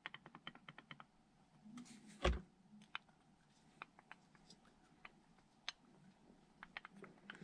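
Light metallic clicking of a wrist pin rocked back and forth in a 5.9 Cummins connecting rod's small-end bushing: a quick run of clicks at first, then scattered ones, with one duller thump about two seconds in. The clicking is the play of a worn small-end bushing.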